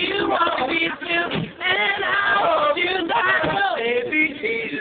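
Men and women singing together unaccompanied, a few voices at once.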